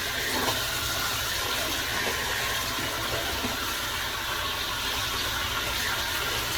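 Shower spray running steadily onto car floor mats in a bathtub, rinsing off dust and mud.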